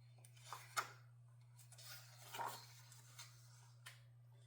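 Near silence: a few faint rustles and soft clicks of picture-book pages being handled and turned, over a low steady hum.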